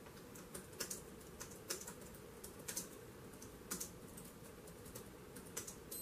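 Faint typing on an HP laptop keyboard: irregular keystrokes in short runs with pauses between them.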